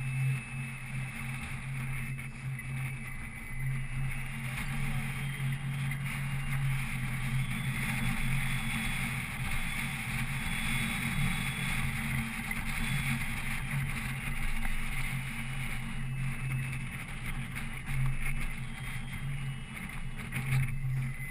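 Boat motor running steadily with a constant low hum, under a wash of water and wind noise.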